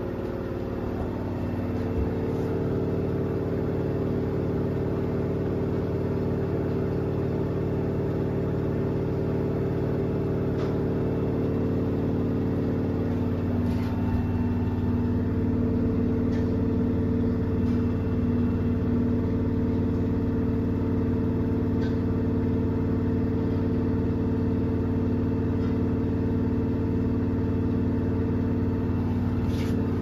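LG front-loading washing machine running with its drum turning at a steady speed. The motor gives a steady hum of several tones and grows slightly louder about a second in.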